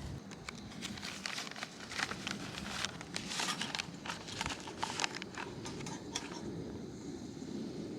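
Irregular clicks and crinkling, densest in the middle and tapering off about six seconds in: things being handled close by, with packaging rustling.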